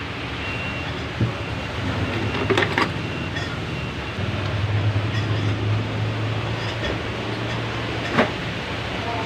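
Workshop noise during the repair: a steady low hum that grows stronger about four seconds in, with a few sharp metallic clinks, the loudest near the end.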